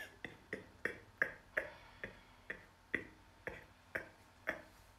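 Steady clock-like ticking, about three ticks a second.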